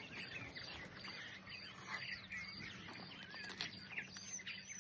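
Many small birds chirping and twittering in a busy overlapping chorus, with a faint steady hum underneath.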